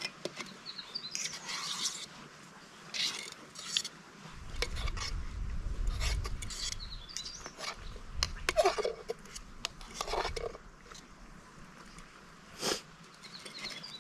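A metal spoon stirring food in a small camp cook pot, scraping and clinking against the pot in irregular strokes. A low rumble runs for a couple of seconds around the middle.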